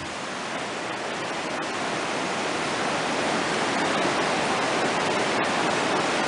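Steady rushing of running water, an even, unbroken roar with no pitch to it.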